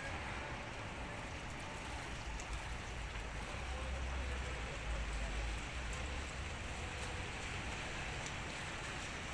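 Steady rain falling, with a low rumble that swells for a couple of seconds in the middle.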